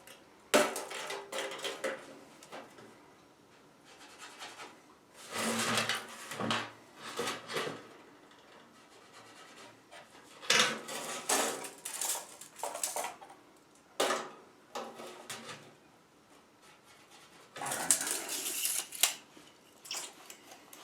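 Sheet-metal furnace heat duct pipe being handled, clattering and scraping in several separate bouts with a few sharp knocks.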